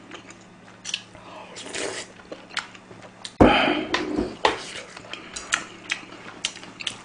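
Chopsticks and utensils clicking against a bowl and pans while eating, with chewing between the clicks and one louder knock about three and a half seconds in.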